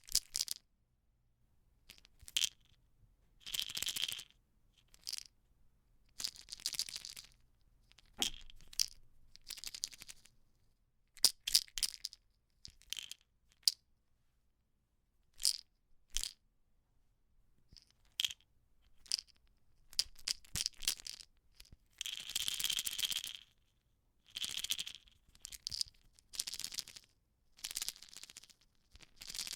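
A few pills rattling in an almost empty plastic pill bottle, shaken in short irregular bursts with pauses between: sharp clicks and brief rattles, the longest shake about 22 to 24 seconds in.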